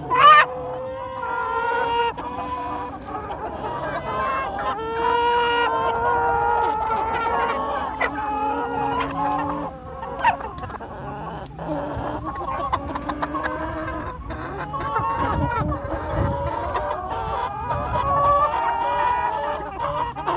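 A flock of chickens clucking over one another, with a rooster crowing.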